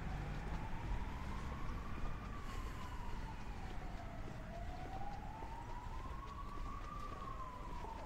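A siren wailing slowly up and down, rising and falling about once every five seconds, over low street noise.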